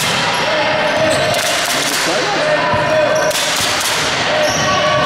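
Basketball game sounds in a gym: a ball bouncing on the court amid the steady din of players' and spectators' voices.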